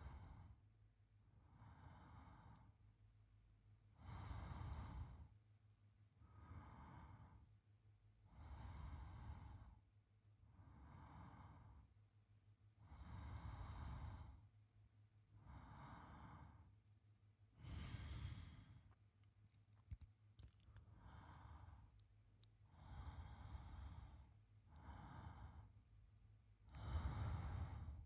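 A man's slow, soft sleep breathing close to the microphone. Even breaths in and out follow one another about every two seconds, so a full breath takes some four to five seconds.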